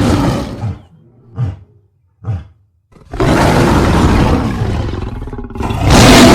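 Lion roar sound effects: a roar trailing off, two short grunts about a second apart, then a long loud roar starting about three seconds in and another starting near the end.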